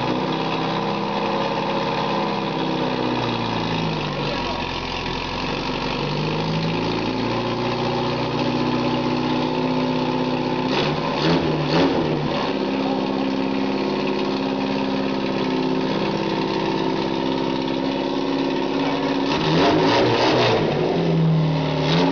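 Water-cooled engine on a test stand running just after its first start, its speed drifting down and up as the throttle is worked by hand, with a few clicks about halfway and the revs rising near the end.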